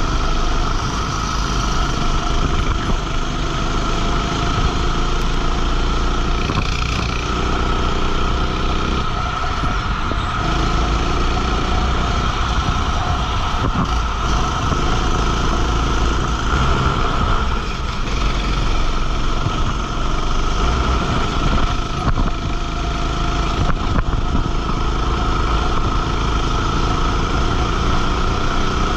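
Go-kart engine running under way, its pitch rising and falling with throttle through the corners.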